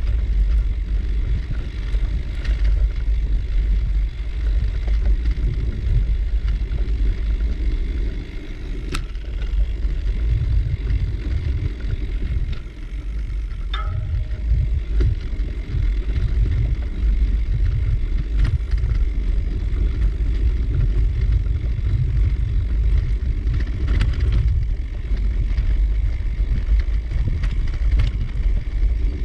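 Bicycle ride: a gusting low rumble of wind on the microphone mixed with tyre noise, broken by a few faint clicks and one brief squeak about halfway through.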